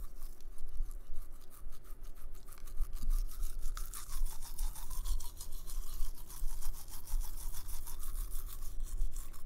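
Toothbrush scrubbing teeth in quick, even back-and-forth strokes.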